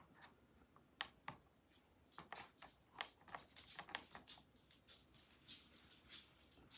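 Faint chewing of sushi close to the microphone: a run of irregular small wet mouth clicks and smacks, starting about a second in.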